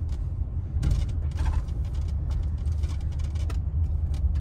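Car driving, heard from inside the cabin: a steady low rumble of engine and road noise, with scattered light clicks and rattles.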